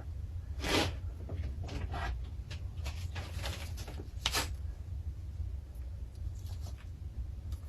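Parts and packaging being handled during an unboxing: a few short rustles and scrapes, the clearest near the start, about two seconds in and about four seconds in, over a steady low hum.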